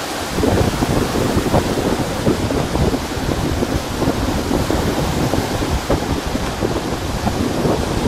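Small lake waves breaking and washing onto the shore in a steady, surging rush, with wind on the microphone adding a low rumble.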